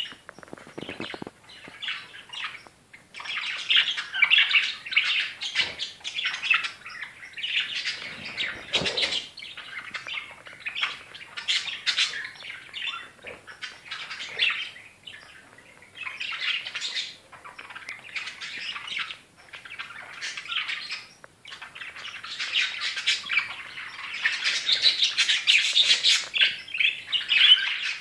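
Budgerigars chattering and warbling: a dense stream of quick, high chirps in spells with short pauses between them.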